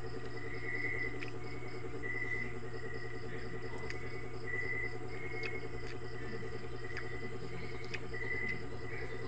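Insects chirping in short, repeated pulses over a steady low hum, with a few faint clicks.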